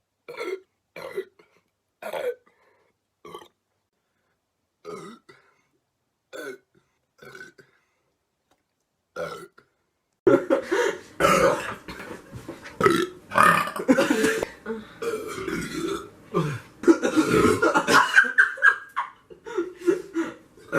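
A young man burping up soda gas. First comes a string of short separate burps with silent gaps between them, then from about ten seconds in a long, loud, unbroken run of burping.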